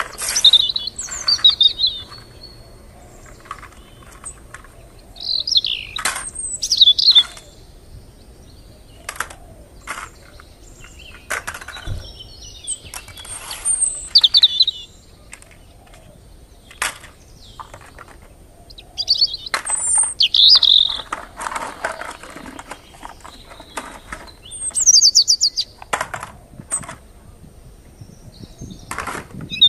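Small birds chirping in short, quick phrases every few seconds, with many sharp clicks and knocks in between.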